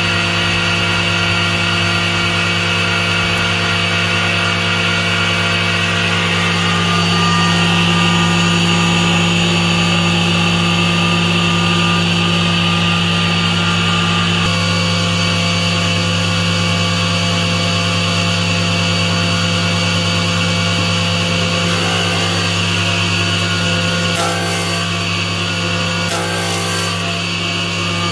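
Planer machine converted to a table saw running steadily, its circular blade spinning freely with no wood in it: a steady motor hum with a whine above it. Two short hissing sounds come near the end.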